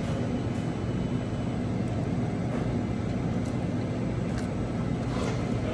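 Steady low mechanical hum of background machinery with an even level, with a few faint clicks near the end.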